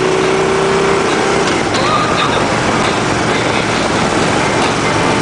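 Steady wind rush over the microphone on a moving Harley-Davidson Ultra Classic touring motorcycle, with its V-twin engine running steadily underneath.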